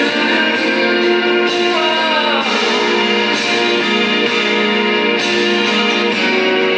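Music playing: an instrumental passage with guitar, with a falling slide in pitch about two seconds in.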